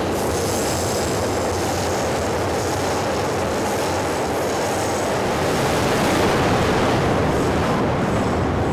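Steady loud rumble and rail noise of a passing train, with a high hiss over it, swelling a little about six seconds in.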